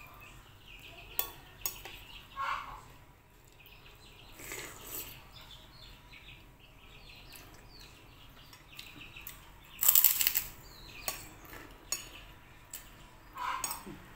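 Metal spoon clicking and scraping against a ceramic soup bowl of soto ayam as food is scooped up, with scattered eating sounds. A short, louder noisy burst comes about ten seconds in.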